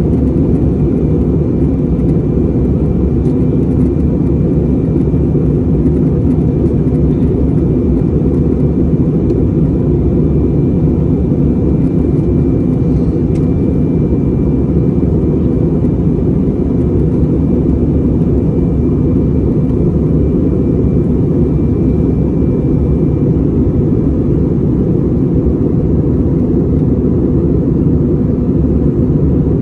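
Airliner cabin noise in cruise: a steady low roar of the jet engines and airflow, with a faint steady high whine that fades out about three-quarters of the way through.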